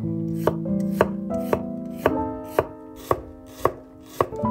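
Chef's knife chopping onion on a wooden cutting board: crisp, even strokes about two a second. Soft background music plays underneath.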